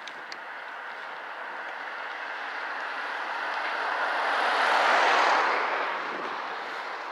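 GAZ-20 Pobeda-bodied car on Toyota Mark II running gear with a 2.5-litre Toyota engine driving past, its tyre and engine noise swelling to loudest about five seconds in, then fading away.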